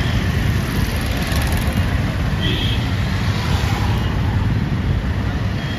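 Busy street traffic of auto-rickshaws, motorbikes and cars passing close by, a steady heavy rumble of engines and tyres. A brief high-pitched tone sounds about halfway through.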